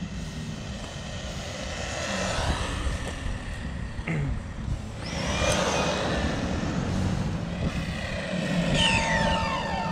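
Brushless 2435 3900 kV motor and drivetrain of an SG1602 1/16-scale RC car whining at high speed as the car runs past several times on asphalt. The pitch falls as it goes by, most clearly near the end.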